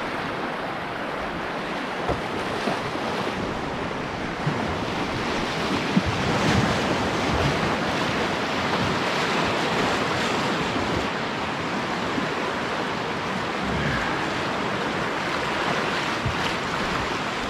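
Rushing, splashing whitewater of a flooded river rapid running around a canoe, with waves breaking against the bow.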